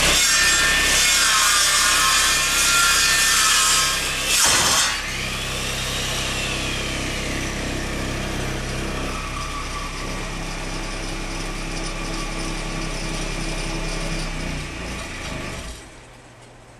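A circular saw mounted as the cutter of a lathe copier, cutting into a turning wood blank: heavy, loud cutting with a wavering pitch for the first few seconds and a sharp burst about four and a half seconds in. It then runs on more lightly with a steady hum and stops shortly before the end.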